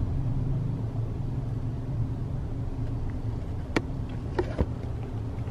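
Car cabin noise from a passenger seat: a steady low hum of engine and road noise, with a few light clicks a little under four seconds in and again about half a second later.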